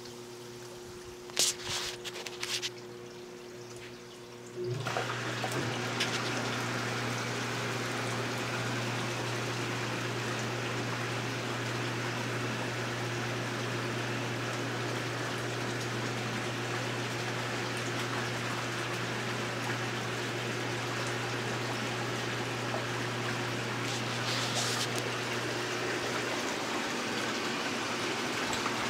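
Hot tub water features running: after a few clicks, a pump starts about five seconds in with a steady low hum, and rushing, splashing water sets in and stays steady. Near the end the hum drops out while the water keeps running.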